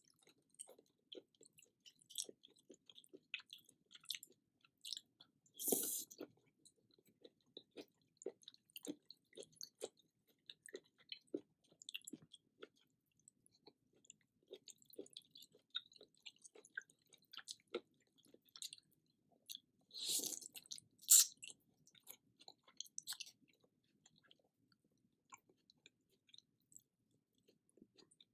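Close-miked chewing and wet mouth sounds of a person eating champong, a spicy seafood noodle soup, made of many small soft clicks. Two louder, longer noisy sounds come about six and twenty seconds in, with a sharp click just after the second.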